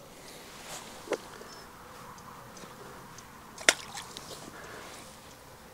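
Quiet steady hiss with a few scattered small clicks, one sharp click about three and a half seconds in.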